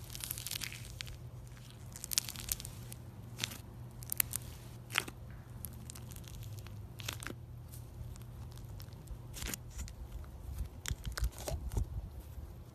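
Slime being squished and stretched by hand, with sharp crackles and pops at irregular moments.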